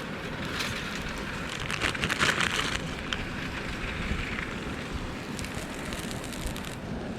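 Wood campfire burning, with a dense burst of crackling about two seconds in and lighter crackles near the end, over a steady low rumble.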